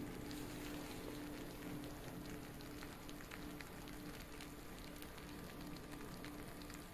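Freshly baked dump cake bubbling in its metal baking pan: a faint, soft crackle of many tiny pops from the hot fruit filling and butter at the edges. A steady hum sits underneath.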